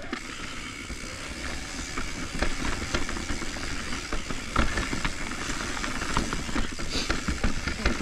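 Commencal full-suspension mountain bike rolling fast down a dirt singletrack: steady tyre and wind noise with frequent knocks and rattles over bumps, a harder knock about halfway through.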